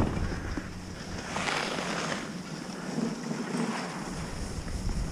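Skis hissing and scraping over packed piste snow, with wind rushing on the camera's microphone; a louder scrape about a second and a half in.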